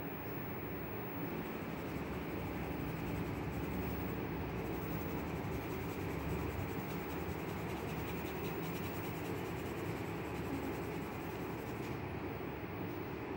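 Pencil and marker scratching on sketchbook paper while drawing, over a steady background hiss and hum.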